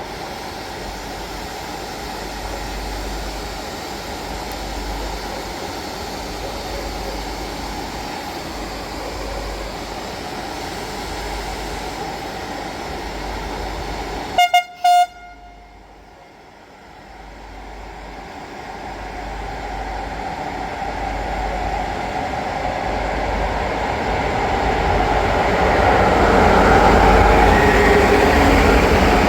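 A Romanian 060-EA electric locomotive heading a passenger train: steady running noise, then two short horn blasts about halfway through, after which the noise of the train builds steadily as it gets under way.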